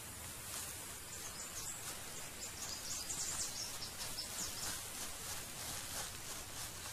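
Insects chirping in dry grassland: high-pitched chirps repeating several times a second over a faint outdoor hush.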